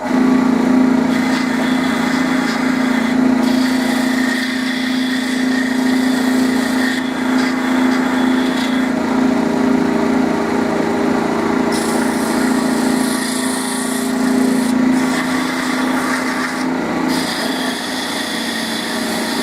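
Small wood lathe's motor running with a steady hum, coming on suddenly at the start, while a strip of sandpaper is held against the spinning wood. The rubbing hiss of the sandpaper grows and fades every few seconds as it is pressed on and eased off.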